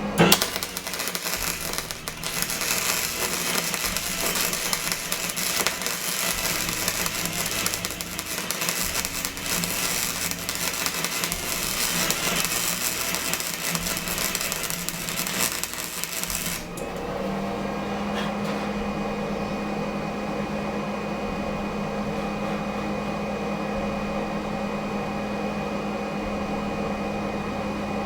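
Electric arc welding a small steel bracket onto a prop mechanism's metal bar: a steady, dense crackle of the arc for about 17 seconds that cuts off suddenly. A steady hum carries on alone after it.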